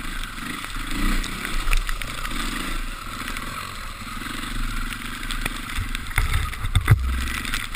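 KTM off-road motorcycle engine running under changing throttle while riding a rough, muddy trail, heard from the rider's helmet with steady noise over it. A cluster of sharp knocks and low thumps comes about six to seven seconds in.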